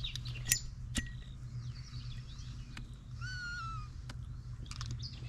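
Outdoor creekside ambience with a low steady hum. There are two sharp clicks in the first second and a few fainter ticks later. A bird gives one wavering, slightly falling call a little past the middle.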